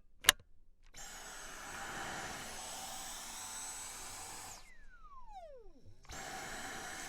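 Dyson Cyclone V10 Animal cordless stick vacuum: a sharp click, then the motor runs with a high steady whine for a few seconds. It cuts off and winds down in a falling whine, then starts again near the end.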